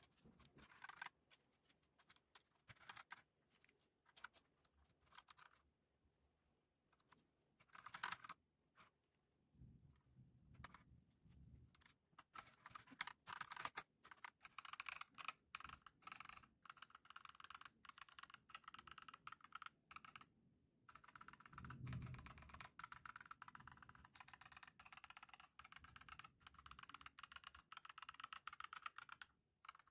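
Typing on a Redragon K596 mechanical keyboard fitted with Akko CS Lavender Purple tactile switches and HyperX PBT pudding keycaps. Scattered single keystrokes at first, then fast continuous typing from a little before halfway, with a brief pause about two-thirds through.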